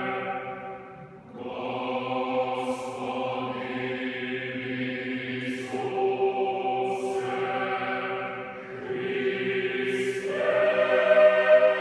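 Boys' choir singing sustained chords in long phrases, with a short break for breath about a second in; the singing grows louder near the end.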